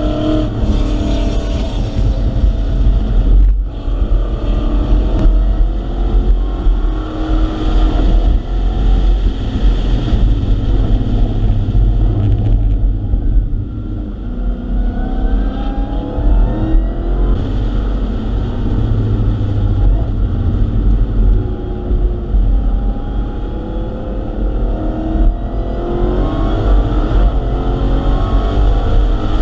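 Dodge SRT Hellcat Redeye's supercharged 6.2-litre V8, heard from inside the cabin at track speed: revs climb and fall repeatedly through gear changes and lifts, over a loud low drone of road and wind noise.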